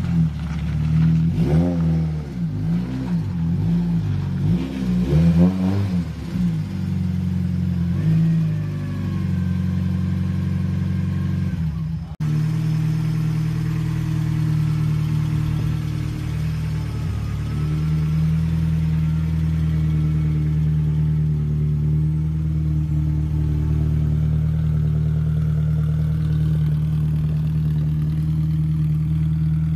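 Nissan S14A drift car's SR20DET turbocharged four-cylinder engine blipped repeatedly for the first several seconds, then settling into a steady idle.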